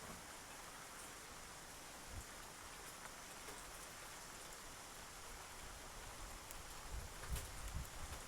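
Faint, steady outdoor hiss like light rain, with a few faint ticks and some low bumps near the end.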